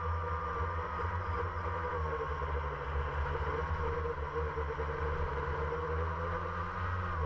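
Blade 350QX quadcopter's electric motors and propellers whining steadily during a descent toward the ground, the pitch wavering slightly with throttle and dipping briefly near the end. A low rumble runs under the whine, picked up by the camera mounted on the drone's frame.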